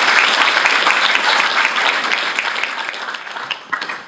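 Audience applauding, the clapping dense at first and dying away over the last couple of seconds.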